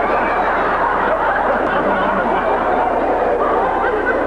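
Audience laughing, many voices at once.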